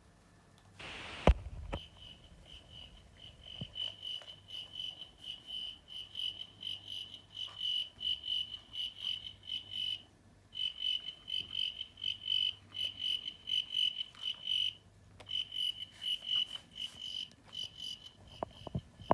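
A cricket chirping in a steady run of short, high pulses, stopping twice for about half a second to a second. About a second in, a brief rush of noise ends in a sharp knock.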